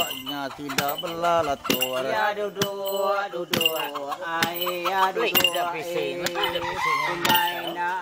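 A male Iban bard (lemambang) chanting the pengap ritual recitation in one sustained, wavering voice, holding long notes. A sharp metallic clink sounds about once a second, keeping time.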